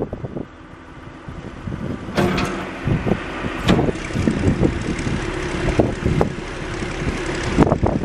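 John Deere 710 backhoe loader's diesel engine running. It gets louder about two seconds in, with repeated sharp knocks and clunks over the drone.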